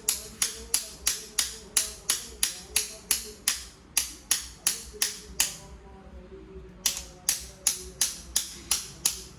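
Even, rapid hammer taps on a metal hydraulic hose fitting, about three a second, stopping for about a second past the middle and then resuming.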